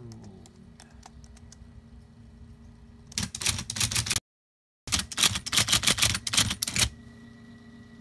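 IBM Correcting Selectric II typewriter, converted to a solenoid-driven serial printer, typing out a short line in a fast run of sharp clacks. The run starts about three seconds in, lasts about three and a half seconds and is broken by a half-second gap.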